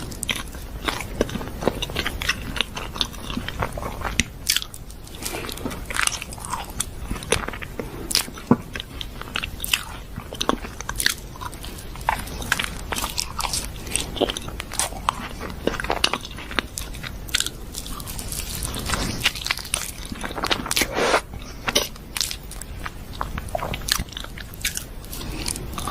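Eating sounds of someone biting into and chewing chocolate caramel profiteroles, with many sharp, irregular crunches and mouth clicks.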